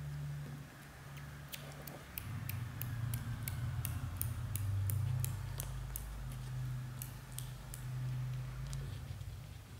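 Golden British Shorthair mother cat purring, a low rumble that swells and eases every second or two, while her newborn kittens suckle with short wet clicks, a few a second, through the middle.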